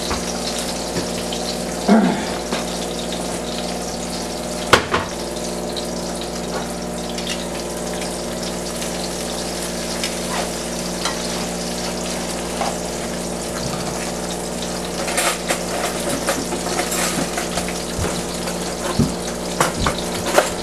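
Eggplant slices sizzling and crackling in hot oil in a frying pan, a steady hiss with scattered pops. Metal tongs click against the pan a few times, more often near the end as the slices are turned.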